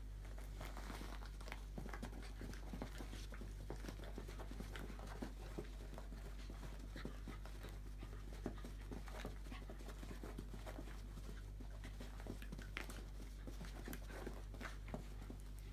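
A dog panting faintly, with scattered small clicks over a steady low hum.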